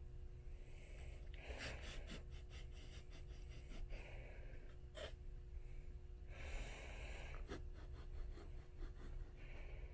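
Breathing close to the microphone, about three breaths, with light tapping and scratching of fingers on old book covers and pages between them, including clusters of small clicks and one sharp tap about five seconds in. A steady low hum runs underneath.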